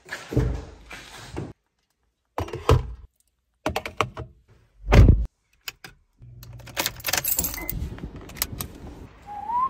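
Getting into a car: the door handle is pulled and the door opened, a drink can is set into the cupholder, a heavy thud comes about five seconds in, then rustling and clicks as the seat belt is pulled across and buckled. Whistled music begins at the very end.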